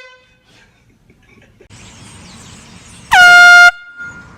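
An air horn blasts once, about three seconds in, for just over half a second: its pitch drops sharply at the start, holds steady, then cuts off suddenly.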